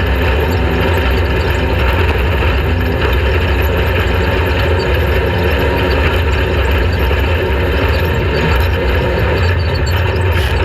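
Off-road race vehicle's engine running steadily, with a dense rush of noise over it.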